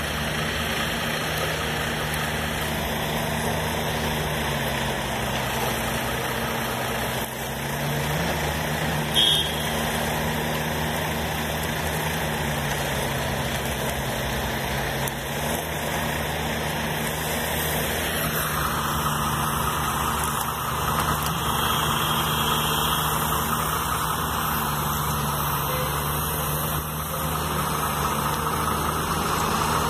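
Iveco Trakker 8x4 cement mixer truck's diesel engine running steadily at low revs, its pitch drifting gently up and down. A little past halfway the sound becomes brighter and somewhat louder.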